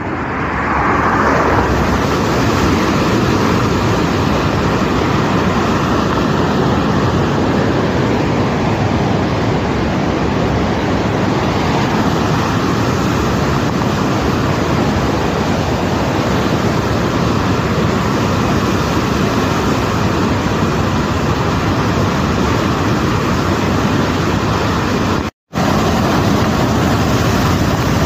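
Steady rush of a fast, rocky mountain river, loud and unbroken, cutting out for a moment near the end.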